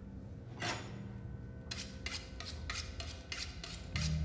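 Knife chopping on a cutting board: one stroke about a second in, then a steady run of about three strokes a second from near the middle on.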